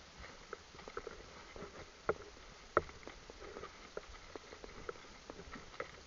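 Hooves of walking horses on a gravel track: an irregular run of soft steps a few times a second, with two sharper knocks about two and three seconds in.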